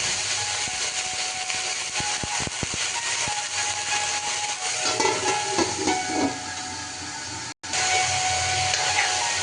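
Steady hissing of food frying in hot oil in a pan, with a few light clicks about two seconds in and some clatter around five to six seconds. The sound cuts out for a moment near the end.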